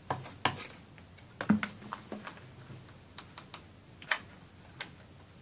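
Irregular light clicks and taps from craft materials being handled and trimmed on a work table, with about a dozen sharp knocks at uneven spacing.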